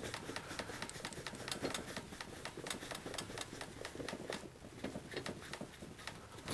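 Bicycle wheel being cleaned by hand: a long run of rapid, light, irregular ticking.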